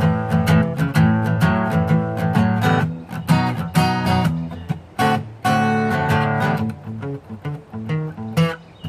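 Acoustic guitar strummed as the closing bars of a song: steady strumming for about three seconds, then thinning to separate, ringing strums that get quieter near the end.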